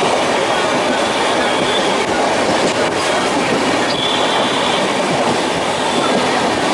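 Indian Railways sleeper-class coach running along the track, heard from inside: steady noise of the wheels on the rails.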